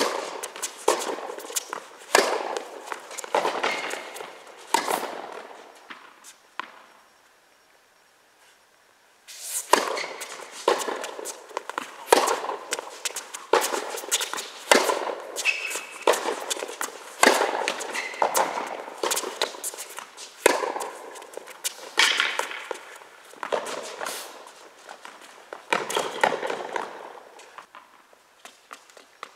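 Tennis rally on an indoor hard court: sharp pops of balls struck by rackets and bouncing, with players' footsteps, echoing in the hall. There is a lull of a few seconds a little before the middle, then the hitting starts again.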